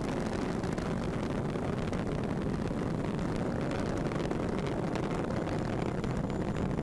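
Falcon 9 rocket's first stage, nine Merlin 1D engines, during ascent: a steady, deep rumbling roar.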